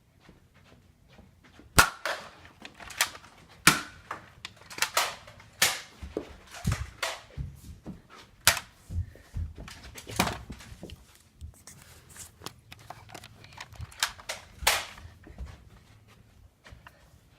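Nerf dart blasters, a Hammershot and a Strongarm, being cocked and fired again and again: an irregular run of sharp clacks and pops, several loud snaps among many smaller clicks, starting about two seconds in.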